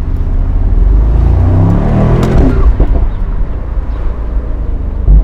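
2022 Mercedes-AMG SL 63's 4.0-litre twin-turbo V8 accelerating, its pitch rising for about a second and a half before dropping at a gear change. Several sharp cracks follow, the loudest near the end.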